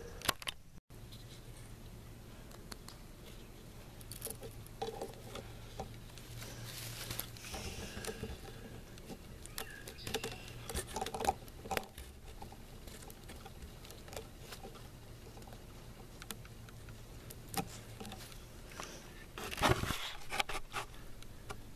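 Handling noise from a homemade paintball mine: scattered small clicks, taps and rustles as the wooden block and its nail plunger are handled, over a faint low hum. A louder brief rustle comes near the end.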